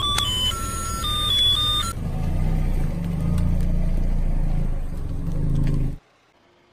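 A short melody of stepped notes ends about two seconds in. Then a car engine runs with a low rumble for about four seconds and cuts off suddenly.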